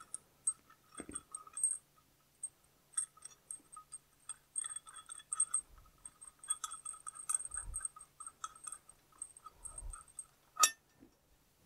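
Light, irregular metallic clinking and tinkling as the metal parts of a tractor clutch pressure plate are fitted together on a threaded compression rod, with one sharper metal click near the end.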